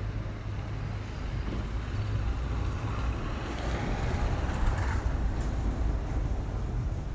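Street ambience: a steady low rumble with a motor vehicle passing, its noise swelling from about three seconds in and fading about two seconds later.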